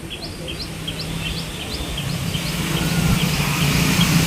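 A small bird chirping over and over, about three short high calls a second, fading out about three seconds in. Under it, a motor vehicle's engine draws near, its low hum growing steadily louder.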